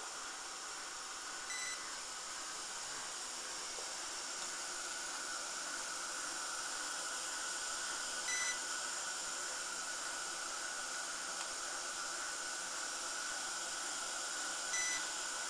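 Steady machine hiss from a flying laser marking line, broken three times by a short electronic beep, about every six and a half seconds.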